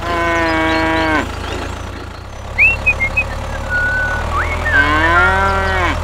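A cow mooing twice, one long moo at the start and another near the end, over a steady low engine hum. A few short bird chirps come in between.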